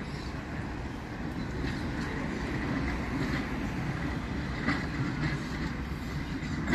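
Brisbane City Council FM Saloon electric tram 554 running along its track around a curve, a steady low rumble of wheels on rail that grows slightly louder as it approaches. A faint steady high tone comes in about two seconds in, and a few light clicks follow in the second half.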